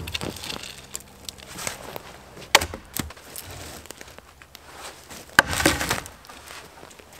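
Dead wood knocking and cracking as a dry branch is worked against a birch trunk, with two loud sharp cracks about two and a half and five and a half seconds in, the second followed by a short crunching rattle. Rustling of twigs and leaf litter underfoot in between.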